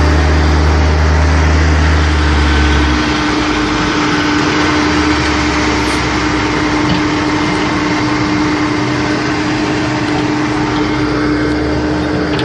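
Heavy diesel engines of farm tractors and a semi truck running steadily under load as the tractors tow the mud-stuck truck, with a steady hum. A deep low drone drops away about three seconds in.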